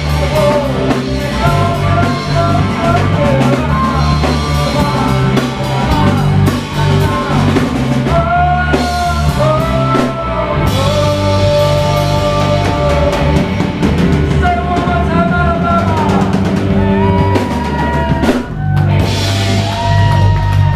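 Live rock band playing: amplified harmonica wailing with bent, sliding notes over electric guitar, bass guitar and drum kit, with a brief break about three-quarters of the way through.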